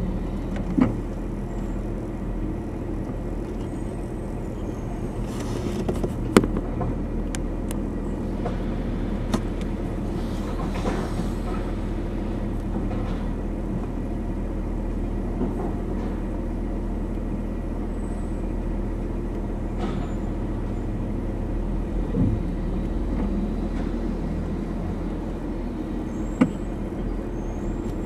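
Rear-loading garbage truck's diesel engine idling steadily, with a few sharp clanks and knocks as trash carts are tipped into the hopper, the loudest about six seconds in.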